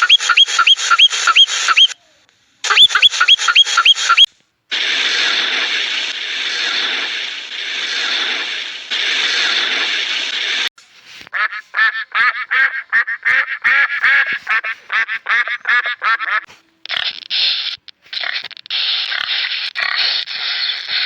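Animal and bird calls in several abruptly cut segments: quick repeated calls at about six a second, then a few seconds of dense steady flock noise, then rapid chattering calls.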